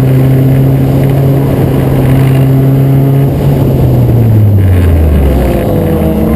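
Acura Integra race car's four-cylinder engine running at high, steady revs. About four seconds in, the revs come down and the engine note falls.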